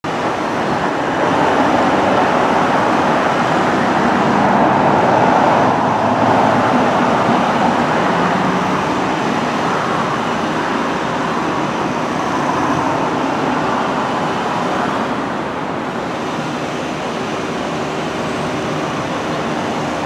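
Steady traffic noise from cars on a busy multi-lane road, a little louder about five seconds in.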